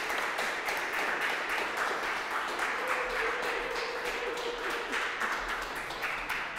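Applause: many hands clapping together in a dense patter, slowly dying down.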